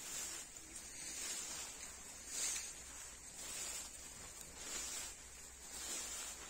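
Soft swishing rustles in grass, roughly once a second, over a steady high-pitched insect buzz.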